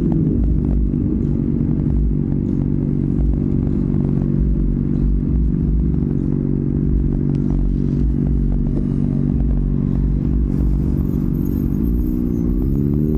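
Honda CBR600RR inline-four engine running steadily at low speed in slow traffic, loud through its slip-on exhaust, the pitch briefly rising and falling near the end.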